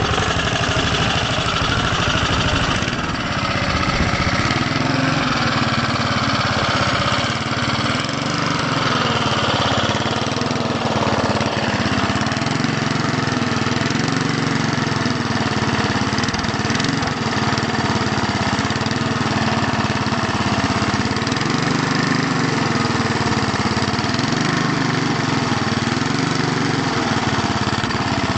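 1977 Mountfield Minor M4 lawn mower's Briggs & Stratton 3 HP single-cylinder four-stroke engine running, its speed rising and falling as the throttle is worked by hand at the carburettor. It is the first run after four years standing, with the autochoke carburettor not yet overhauled.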